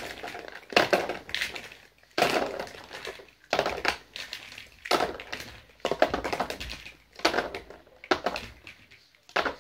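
Handfuls of small Squinkies toys in plastic capsules clattering as they are scooped up and dropped back, in about eight separate bursts roughly a second apart.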